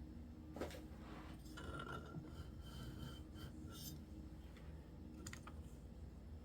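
Faint, scattered light clicks and rattles of small plastic and metal parts being handled on the suspension of an RC truck, with the wheel hub just removed.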